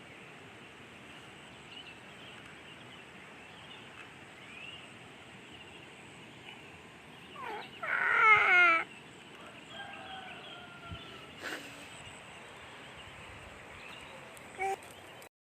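Domestic fowl calling once about eight seconds in, a loud, rapidly warbling call that falls in pitch, over faint scattered bird chirps.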